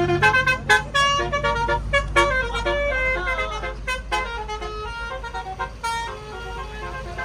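A tour bus's Basuri 'telolet' musical air horn plays a quick tune of short notes that jump up and down in pitch. The bus engine rumbles low underneath, and the horn grows fainter in the second half.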